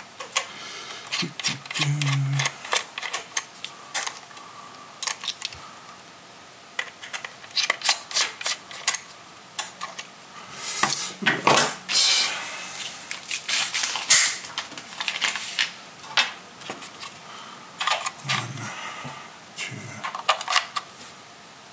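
Small screwdriver backing out the battery-cover screw of a plastic comlink replica, then the cover lifting off and AA batteries clicking into the battery compartment. It makes a run of short plastic clicks, scrapes and knocks, busiest around the middle.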